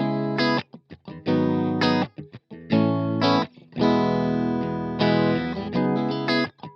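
Electric guitar played through a Strymon Iridium amp-modeller pedal: chords that start sharply out of silence, held briefly and cut off, with short choked stabs in between and one longer ringing chord in the middle.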